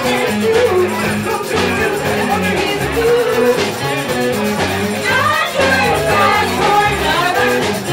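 A live band playing a rock song with a singer, bass notes and a steady beat, heard through the room.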